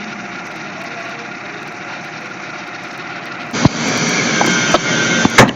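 The Lexus GS 300's engine running steadily. About three and a half seconds in, the sound abruptly becomes louder and rougher, with a few sharp knocks.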